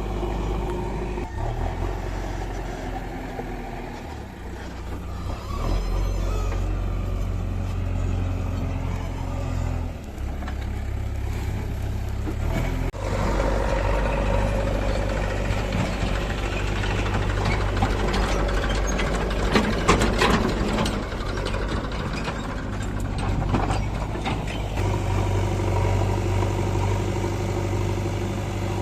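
Diesel engines of a backhoe loader and tractor running, the note changing several times as the machines work under load, with a few sharp clanks and knocks in the second half.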